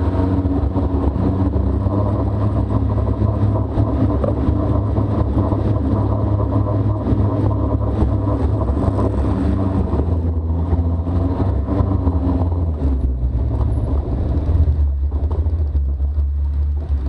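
Arctic Cat Wildcat side-by-side engine running under way, a steady loud drone with a deep rumble; its pitch drops and settles lower about two-thirds of the way through.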